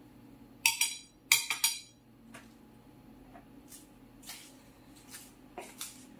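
Metal spoon being set down on a ceramic plate: three sharp ringing clinks in quick succession about a second in, then a few softer taps as it settles.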